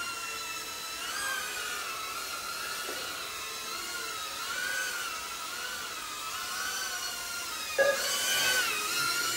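Small FPV racing quadcopters flying: the motors and propellers whine, the pitch rising and falling as the pilots work the throttle through the course. The whine swells louder about eight seconds in.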